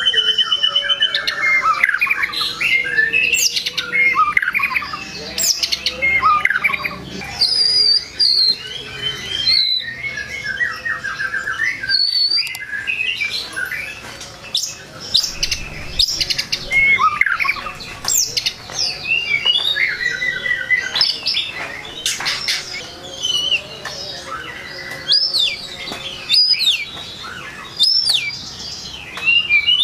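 White-rumped shama (murai batu) singing a long, varied song of whistles, pitch glides, rapid trills and sharp clicking notes, with only short pauses. It is a full repertoire song of the kind keepers play to rouse rival shamas.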